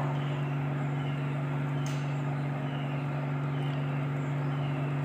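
Meat frying in oil in an aluminium pot over a steady low hum, with a faint chirp repeating about every half second and a single click about two seconds in.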